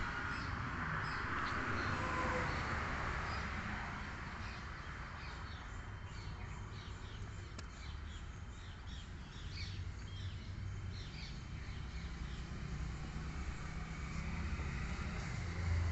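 Small birds chirping again and again in the background, over a steady low rumble.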